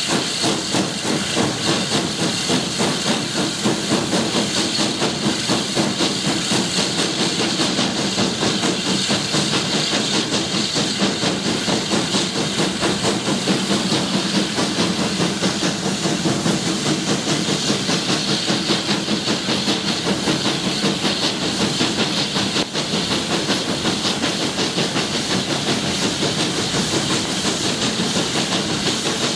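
US Army Transportation Corps S160 2-8-0 steam locomotive working along the line: a continuous hiss of steam with a fast, regular pulse of exhaust beats.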